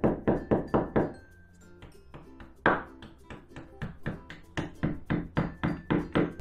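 Hammer tapping plastic wall plugs into drilled holes in a masonry wall. A quick run of about five strikes, a pause, one hard strike, then steady strikes about four a second.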